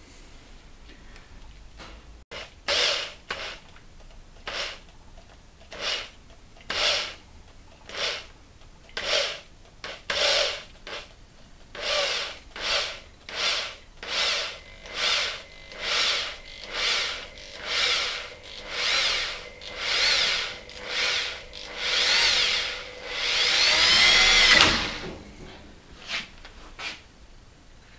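Electric hand drill run in short trigger bursts, about one a second, each spinning up and down again, with one longer, louder run near the end: the drill is slowly winding thin steel wire from a steel cable into a tightly coiled extension spring.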